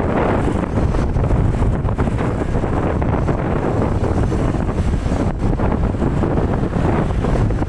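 Wind buffeting the microphone on a moving motorcycle: a steady, loud rushing rumble.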